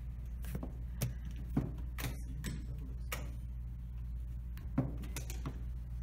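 Plastic chess pieces set down on a roll-up board and digital chess clock buttons pressed in a quick blitz exchange of moves: a series of short, sharp clicks and knocks at an uneven pace, over a steady low hum.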